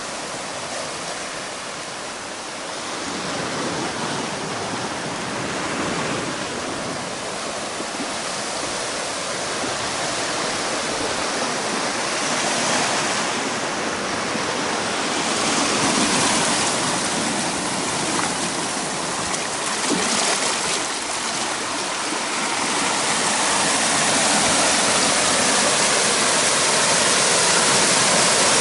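Ocean surf washing into a rocky cove, a steady rush of breaking and churning water that grows louder toward the end as the waves foam among the rocks.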